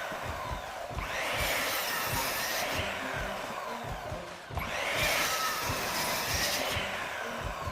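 A power tool working oak, with a harsh cutting hiss that comes in stretches of one to two seconds with brief dips between them.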